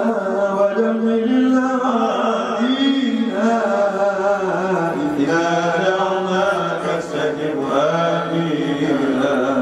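A man's voice chanting Arabic devotional verse into a microphone, unaccompanied, in long drawn-out notes that bend up and down.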